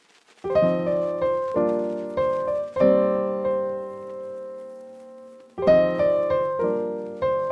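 Intro music: keyboard chords struck and left to fade, a few in quick succession, then one long held chord, then more chords near the end.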